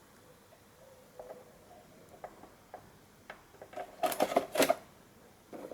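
Scattered light clicks, then a quick run of louder clicks and clacks about four seconds in, like small hard parts being handled and snapped together.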